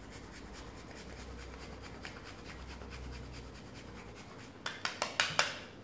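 Dark chocolate being grated on a fine handheld rasp grater in quick, soft scraping strokes. A few sharper clicks come near the end.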